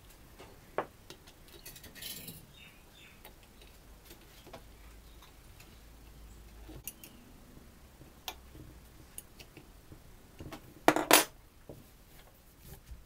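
Light metallic clicks and clinks as the rotary compressor's metal pump housing is handled and fitted over the shaft by hand, with two sharp, loud clanks close together near the end.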